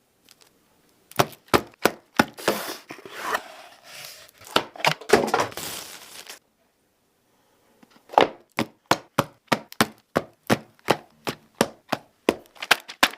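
Buttons of a Zebronics wired optical mouse clicked repeatedly in a steady run of about three sharp clicks a second, after a few seconds of irregular clicks mixed with rustling handling noise.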